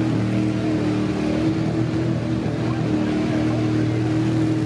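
Engine of a lifted Chevrolet square-body mud truck on tractor tyres running hard at fairly steady revs, with a slight dip in pitch around the middle, as it drives across the mud track.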